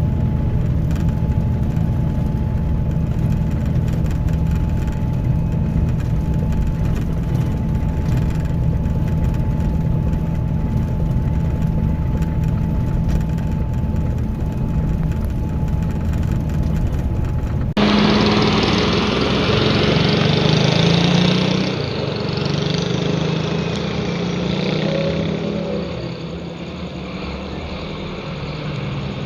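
Scania K310IB coach's diesel engine running steadily, with a thin steady whine over its low drone. About eighteen seconds in, the sound cuts abruptly to a different, brighter recording that eases off toward the end.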